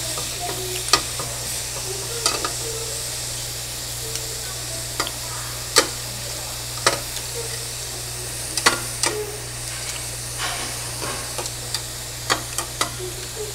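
Meat sizzling on a tabletop grill, with metal tongs clicking sharply against the grill plate every second or two as the pieces are turned.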